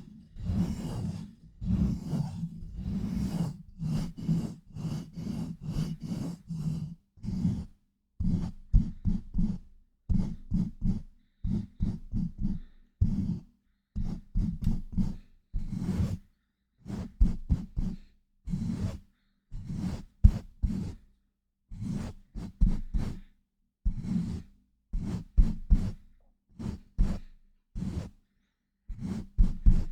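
Hands pumping rapidly over a microphone: cupped hands press and release around it to make a run of muffled, air-pushing whooshes. The strokes come about two or three a second, packed together for the first several seconds, then in short clusters with brief silences between them.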